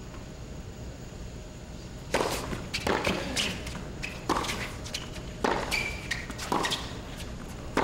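Tennis rally: a series of sharp racket-on-ball hits about one a second, the first about two seconds in, over a low crowd hush.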